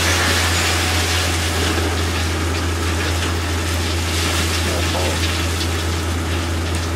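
A load of wood chips sliding and pouring out of a tipped dump-truck bed onto the ground, a steady rushing hiss, over the constant low hum of the truck's engine running.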